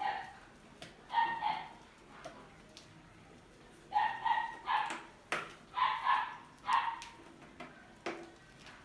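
A dog barking: about nine short barks in a few bursts, with a couple of sharp clicks between them.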